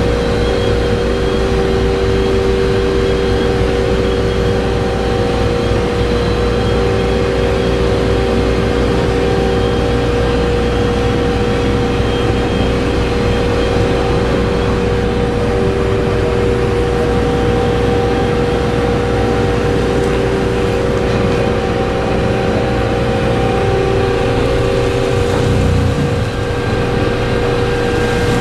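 The ferry New Koshiki's engines and shipboard machinery running at the quay, getting ready to cast off: a loud, steady drone with a constant hum over it.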